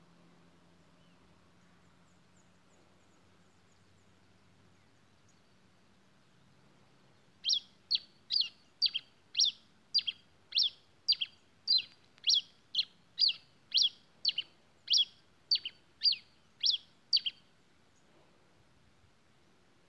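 A caged pileated finch (tico-tico-rei-cinza) singing a run of about nineteen sharp, high notes that each sweep quickly downward, at about two a second. The run starts about seven and a half seconds in and lasts about ten seconds.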